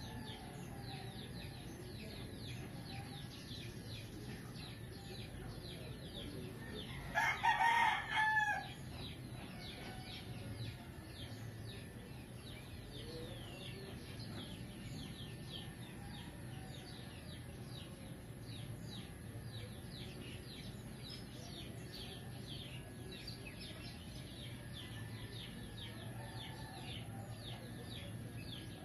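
A rooster crows once, a loud call of about a second and a half about seven seconds in. Quick, high bird chirps keep up throughout over a low steady hum.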